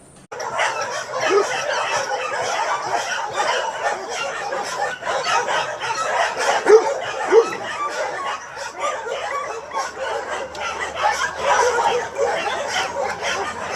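Continuous dense chatter of many small animal calls, clucking like a flock of fowl, with two louder short rising calls about seven seconds in.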